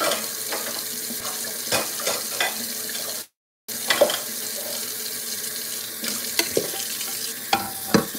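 Kitchen tap running into a sink during washing up, with scattered knocks and clatters of things being handled in the sink. The sound cuts out completely for a moment about three seconds in.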